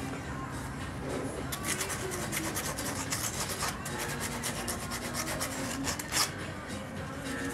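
Rapid, repeated scraping and rubbing strokes by hand on metal, as a cylinder head's valve parts are cleaned and reconditioned.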